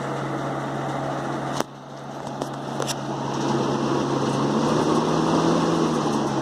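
A 1972 Galaxy 3714 box fan's motor running with a steady hum and a little rattle, along with the rush of air from the blades. About a second and a half in there is a sharp click of the speed switch, and the fan noise drops, then builds up again over a few seconds and begins to ease off near the end.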